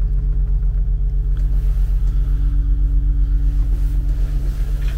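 Motor yacht's inboard engine running steadily in gear, heard inside the wheelhouse as a low rumble with an even throb. A faint higher hum joins it for a couple of seconds around the middle.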